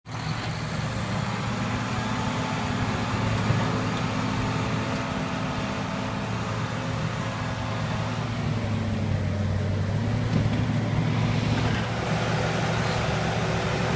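Heavy diesel engines running with a steady low drone: a semi truck hauling a log loader on its trailer labours through mud, and a John Deere crawler dozer is hooked up ahead of it toward the end.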